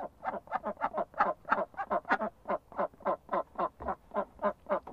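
Duck quacking in a quick, even run of short quacks, about four a second.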